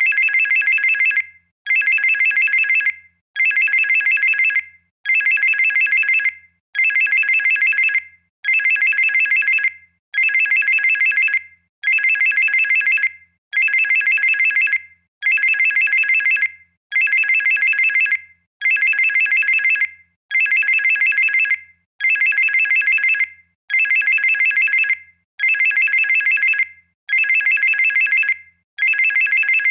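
Electronic phone ringtone: a loud, high-pitched trill of several tones at once, each burst about a second and a half long, repeating over and over with short gaps.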